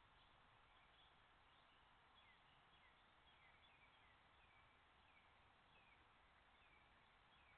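Near silence: the faint steady hiss of a trail camera's microphone, with a run of faint, short, high chirping calls falling in pitch, about two a second.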